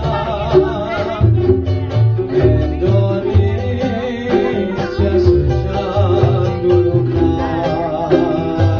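Keroncong Tugu band playing: quick plucked strings and a pulsing bass line, with a man singing in a wavering, vibrato-laden voice over them.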